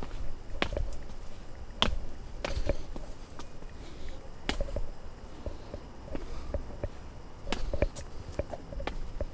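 A hiker's footsteps on a mountain trail: irregular sharp steps and scuffs, roughly one or two a second, over a low rumble.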